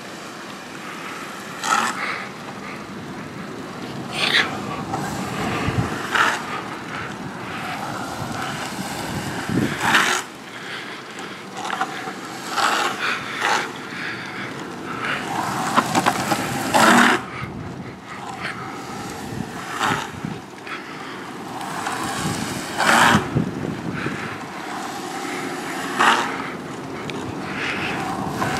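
Urethane longboard wheels rolling on asphalt, with short scraping slides every couple of seconds. The wheels, softened by the heat, break loose and slide easily.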